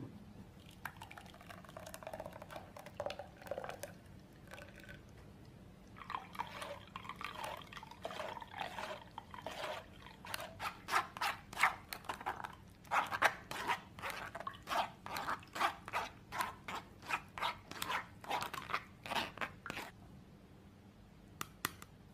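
Blended carrot pulp poured into a stainless steel mesh strainer, then a spoon pressing and scraping the pulp against the mesh in quick repeated strokes, about two a second, as the juice drains into a glass bowl below.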